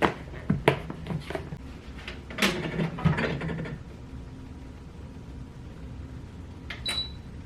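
Toaster oven being loaded and set: a run of clicks and knocks from the door, tray and bread in the first few seconds, then a steady low hum, and a sharp click with a short high beep near the end.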